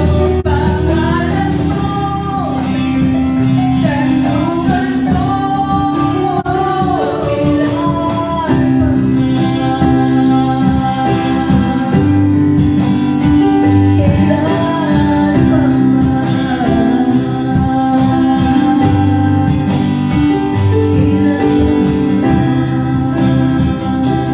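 Gospel worship song: a voice singing over guitar and sustained accompaniment.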